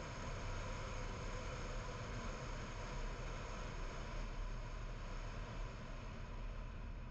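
Steady road noise from a car driving along a paved road: a low rumble under an even hiss of tyres and air.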